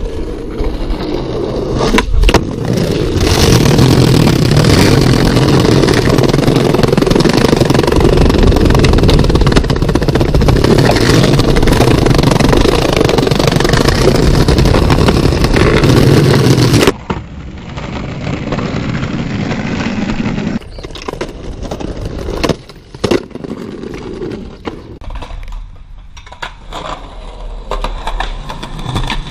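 Skateboard wheels rolling loudly over rough pavement, a steady heavy rumble, then after a cut a quieter roll broken by a few sharp clacks of the board striking the ground about two-thirds of the way through.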